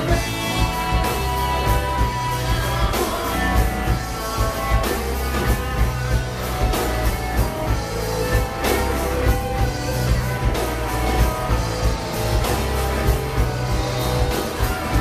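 Live rock band playing an instrumental passage, guitar over bass and regular drum strokes, with no singing.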